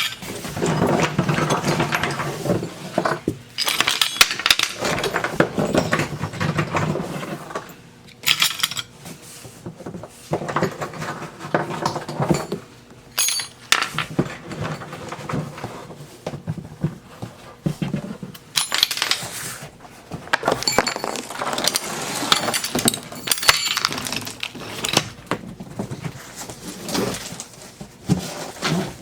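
Small metal sewing machine parts clinking and knocking together as they are handled and lifted out of a box, in irregular bursts of clatter with short pauses.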